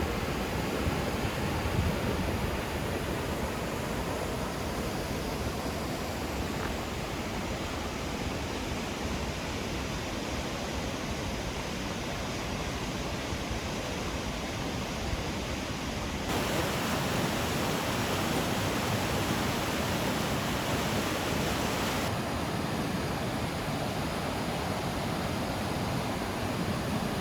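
Naena Falls' large waterfall, a steady rush of heavily falling water. Just past halfway it turns abruptly brighter and hissier for about six seconds, then returns to the deeper rush.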